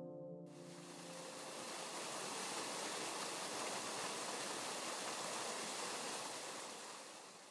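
Waterfall pouring into a pool: a steady rushing of water that fades out near the end. Piano music dies away in the first second.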